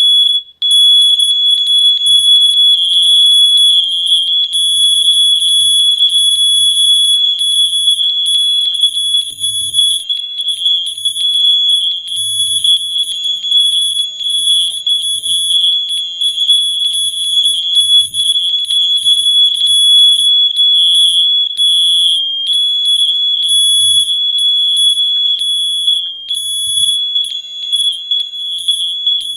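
A hundred smoke alarms sounding at once. Their shrill beeps overlap into one near-continuous high-pitched tone that wavers in loudness.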